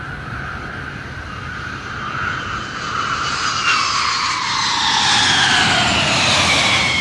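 Jet aircraft flyby sound effect: a rushing engine sound with a whine that falls in pitch as it passes, growing louder toward the end.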